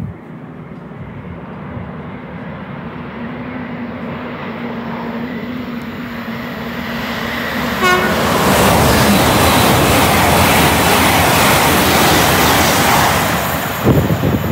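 A train approaching and passing through the station at speed: a rising hum, a short horn toot about eight seconds in, then a loud rush of wheels and wind for about five seconds that falls away near the end.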